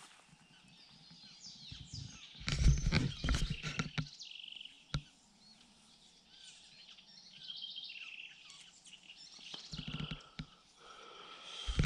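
Small birds chirping in short repeated calls, with a burst of rustling and knocks about two to four seconds in from the camera being handled and turned around, and a few low thumps near the end.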